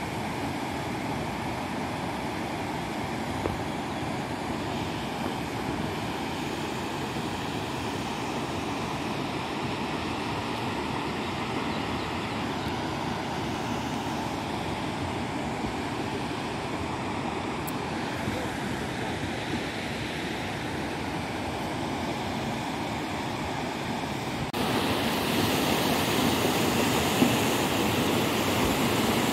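Muddy floodwater rushing down a river in spate after a flash flood: a steady, churning water noise. It grows louder for the last few seconds.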